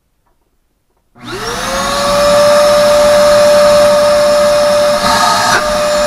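Mastervac 30-litre (8 US gallon) wet/dry shop vacuum switched on about a second in. Its motor spins up with a rising whine and settles into a loud, steady whine over a rush of air, with a brief click near the end.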